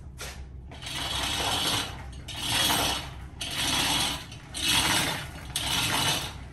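Manual chain hoist being hauled by hand: its chain runs through the hoist in repeated strokes about a second long, one after another, starting about a second in.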